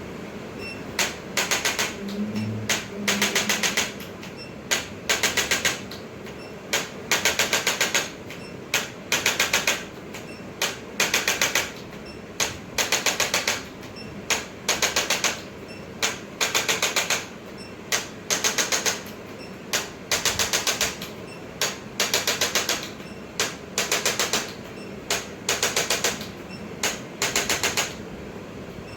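A handheld percussive treatment instrument firing in short bursts of rapid mechanical taps, about one burst a second, each a quick run of sharp clicks.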